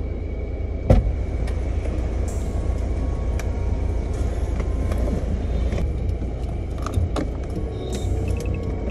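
Car running, heard inside the cabin as a steady low rumble, with a sharp knock about a second in and several lighter clicks after it.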